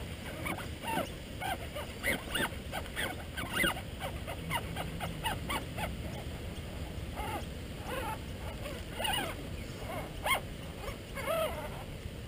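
An animal's short, high cries, each bending up or down in pitch, repeated irregularly, over a steady low rumble.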